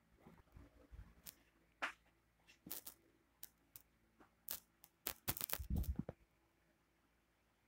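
Scattered small clicks, taps and rustles of hands handling a small toy from a blind bag and its wrapper on a table, with a busier cluster about five seconds in.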